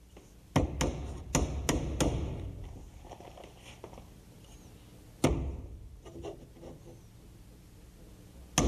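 Claw hammer driving a small nail through a plywood template into the edge of a wooden door. Five quick taps come in the first two seconds, then a single blow about five seconds in, and another near the end.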